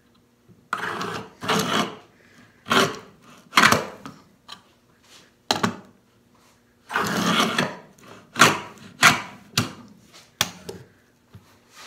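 A hand tool scraping along a wooden rail in about a dozen short, uneven strokes, each a brief rasp with quiet gaps between.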